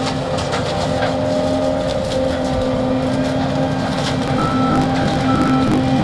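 John Deere T670i tracked combine harvester running steadily under load while harvesting grain corn, a constant engine and machinery drone with crackling. Near the end a high warning beeper sounds twice, in short beeps a little under a second apart.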